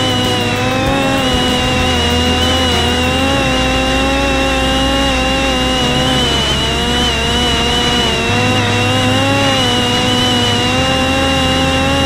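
Parrot Disco drone's electric motor and pusher propeller running at steady cruise throttle in flight: a constant buzzing whine whose pitch wavers only slightly, with wind rushing over the onboard microphone.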